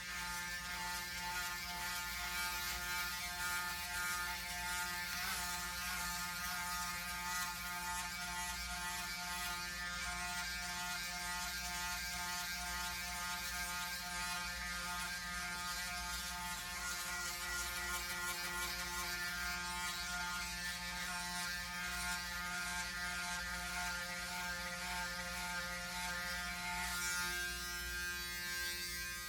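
Braun Series 9 Pro electric foil shaver, fitted with a replacement motor, running steadily during a head shave: a constant buzz with a raspy cutting noise over it.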